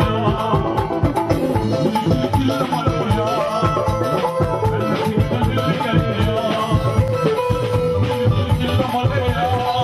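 A live band playing upbeat music, with drum kit and electric guitar over a fast, steady beat. A long held note enters about three-quarters of the way in.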